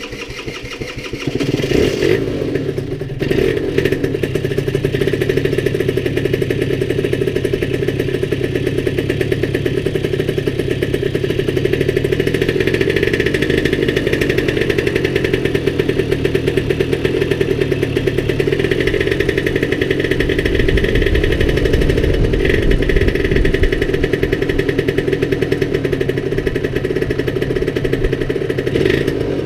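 A 2010 Yamaha TZR50's 50cc two-stroke single idling on a cold start, after the bike has stood unused for a couple of months. It gets louder about two seconds in, then runs on at a steady idle.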